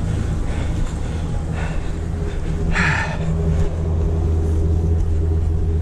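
Pickup truck engine idling with a steady low hum. A few brief scuffs from a flat-screen TV being handled are heard, the clearest about three seconds in.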